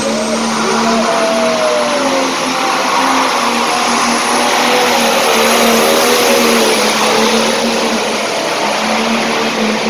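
Hot farm pulling tractor's diesel engine running flat out under load as it drags the sled down the track. A thin high whistle is held steady above the engine noise.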